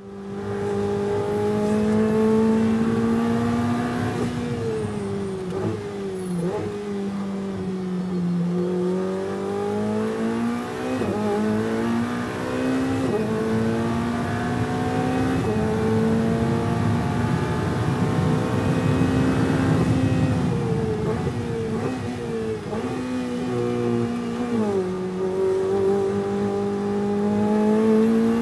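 Ferrari 488 Challenge Evo's twin-turbo V8 race engine heard from inside the cockpit while lapping at speed. The engine note climbs steadily under acceleration and drops abruptly at each gearshift, many times over.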